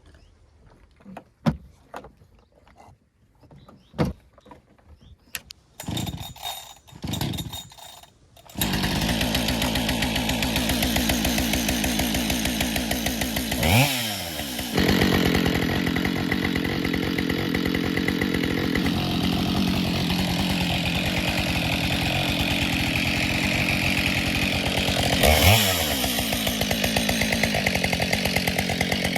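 Knocks and handling noises, then about eight seconds in a Husqvarna 572 XP two-stroke chainsaw starts and runs steadily. Its engine is briefly revved twice, once about 14 seconds in and again near 25 seconds.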